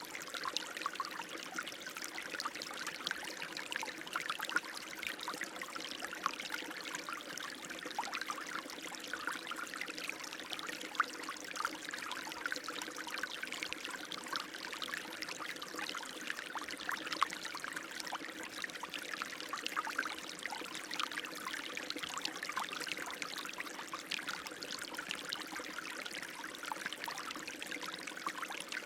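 Running water flowing steadily, a constant splashing trickle with many small splashes.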